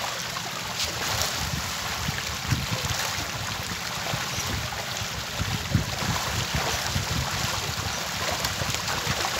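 A dense school of caged fish splashing and churning at the water surface in a feeding frenzy, a steady rush of small splashes, with wind buffeting the microphone.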